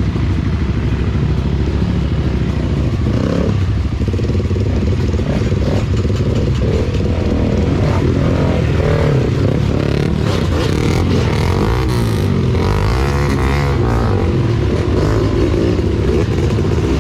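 Enduro dirt-bike engine running under load on a trail, its pitch rising and falling as the throttle is worked, with some clattering.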